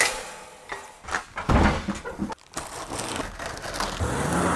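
A knock, then a large cardboard shipping box being torn open: irregular crinkling, scraping and tearing of cardboard and packing tape, with a longer rasping tear near the end.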